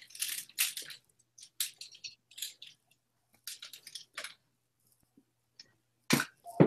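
A string of short, irregular rustling noises, then a louder thump about six seconds in.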